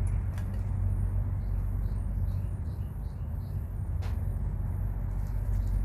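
Outdoor ambience: a steady low rumble, with faint repeated bird chirps and two light clicks, one near the start and one about four seconds in.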